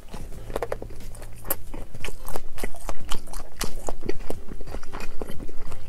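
Close-miked chewing of shrimp nigiri sushi: a quick, irregular run of wet smacks and mouth clicks.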